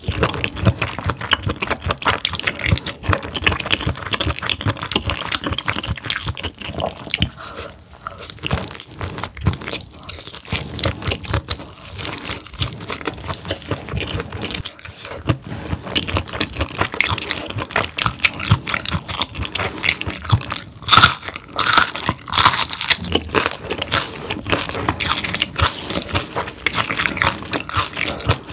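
Close-miked chewing of whole steamed squid, a dense run of small mouth clicks that does not stop.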